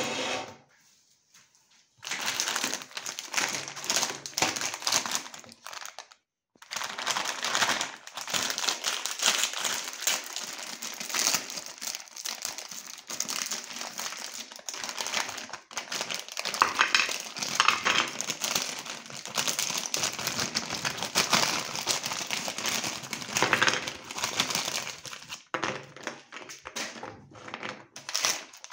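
Plastic biscuit wrappers crinkling as they are opened by hand, a long run of dense crackling with a short pause about six seconds in.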